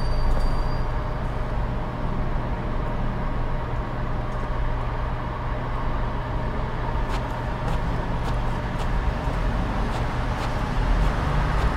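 Steady low outdoor rumble, like distant traffic, with a faint continuous hum and no distinct events.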